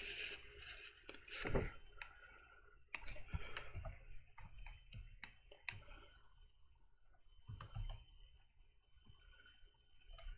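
Faint, irregular clicking of a computer keyboard and mouse, in scattered single clicks and small clusters.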